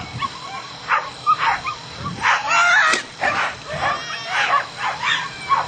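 Dogs barking and yipping excitedly, short repeated barks about twice a second, typical of dogs worked up at flyball racing.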